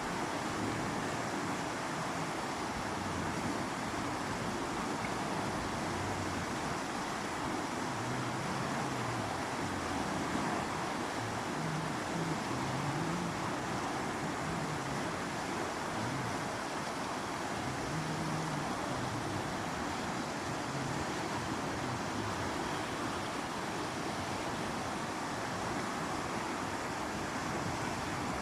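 Mountain river flowing: a steady, unbroken rush of water. Faint low-pitched sounds come and go in the middle.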